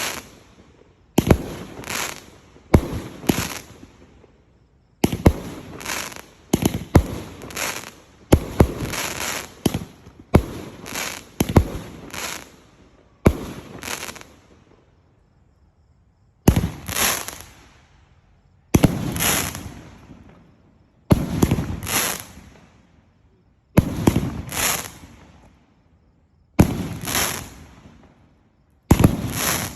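A 109-shot fireworks cake firing: sharp shots and aerial bursts come in quick clusters of two to four, each trailing off in a crackle. Short pauses separate the clusters, with a longer lull about halfway through.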